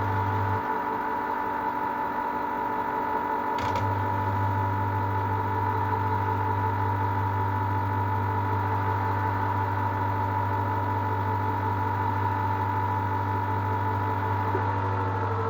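LG F1296CDP3 washer-dryer running, its motor giving a steady whine over a low hum. The hum drops out for about three seconds near the start and comes back with a click.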